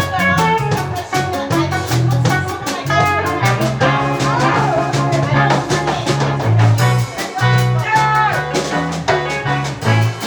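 Live band playing an instrumental passage: a guitar carries a melodic lead line with bent notes over a bass line and a steady drum-kit beat.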